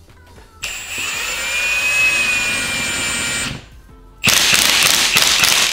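Cordless impact wrench running the original nut down onto an air strut's top mount, in two bursts: a longer one of about three seconds with a steady whine, then after a short pause a harsher burst of about a second and a half as it tightens the nut.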